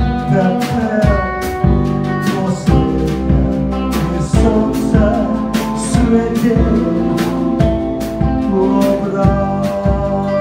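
Small band playing live together: acoustic guitar, electric guitar, bass guitar and drum kit, with drum hits landing throughout over sustained guitar chords and bass.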